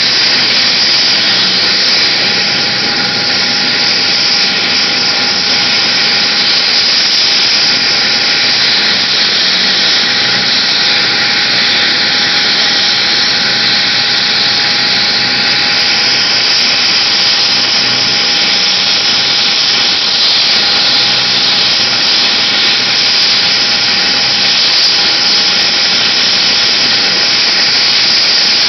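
AgustaWestland AW139 air-ambulance helicopter running on the helipad with its rotor turning, ready for take-off: a steady turbine whine under a strong rushing hiss, with no change in pitch or level.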